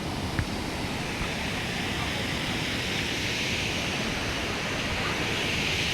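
Steady rush of a waterfall, the hiss growing a little louder and brighter about halfway through.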